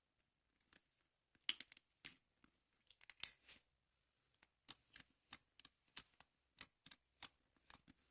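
Short, sharp clicks and crackles from something being handled close up, bunched together about a second and a half in, then coming singly about three a second.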